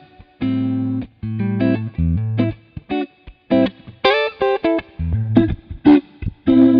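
Electric guitar through a Fender Hot Rod Deluxe amp with a little reverb, playing a riff of short, clipped notes over low bass notes. It is played dry as a reference tone, without the rotary-speaker effect.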